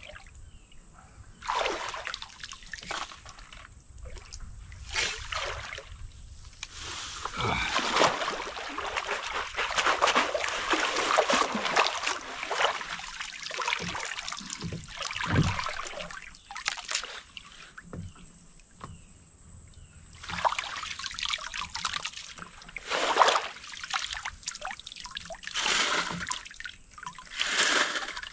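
Shallow creek water splashing and sloshing in irregular bursts as someone wades, scoops gravel by hand and dunks and works a wooden screen sifter, with water trickling back through the mesh. The busiest splashing comes about a third of the way in, with shorter bursts after.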